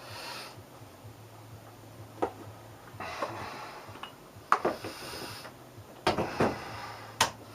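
Small hard objects being handled and set down: a few sharp clicks and knocks with some rustling in between, over a steady low hum.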